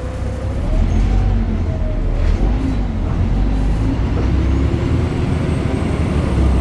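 BredaMenarini Avancity Plus city bus's Deutz diesel engine and ZF gearbox running under way, a heavy low drone that grows louder about a second in. A faint high whine rises slowly in pitch in the second half.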